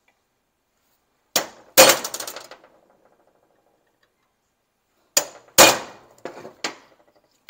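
Hammer striking a center punch on a steel angle bar, marking hole centres for drilling. A light tap then a hard, ringing metallic blow comes about 1.5 s in. The same pair comes again about 5 s in, followed by two lighter taps.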